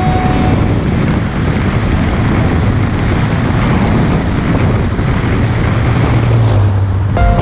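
Steady loud rumble and rush of a moving vehicle, with wind buffeting the microphone. A low engine hum grows stronger near the end.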